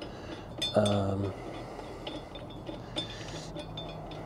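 Light metal clinks and taps as a steel rotary mower blade is lined up and seated onto the blade adapter under a Toro mower deck, with a slightly sharper tap about three seconds in. A short voiced hum comes about a second in.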